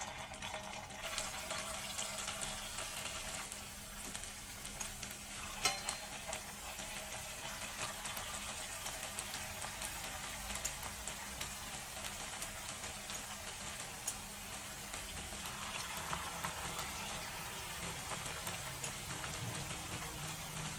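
Flour-coated potato strings frying in hot oil, sizzling and crackling steadily, with one sharp crack about six seconds in.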